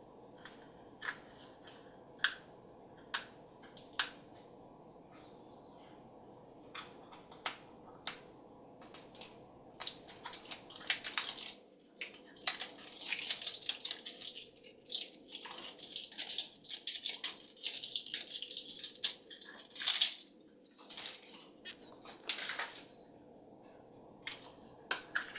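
A toy surprise package being handled and opened: a few scattered clicks and taps, then about twelve seconds of crinkling and rustling plastic wrapping in the middle, with a few last taps near the end.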